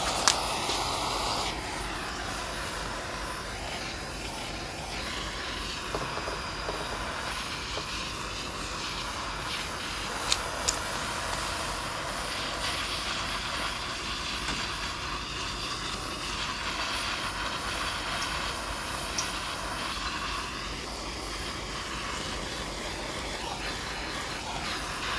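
Handheld gas torch with its flame running in a steady hiss as it is played over a honey and brown sugar glaze, caramelizing it. Two brief clicks about ten seconds in.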